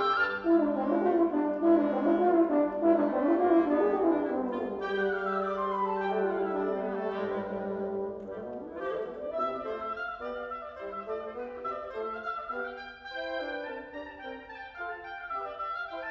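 Woodwind quintet of flute, oboe, clarinet, French horn and bassoon playing classical chamber music. Busy interwoven lines give way to a long held low note under a falling run about halfway through, then softer, lighter, more detached playing.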